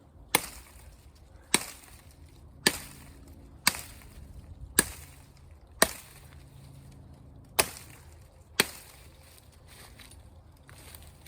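Eight sharp chopping strikes of a blade into green wood, about one a second, with a short pause after the sixth: limbing and trimming a freshly cut sapling into a shelter pole.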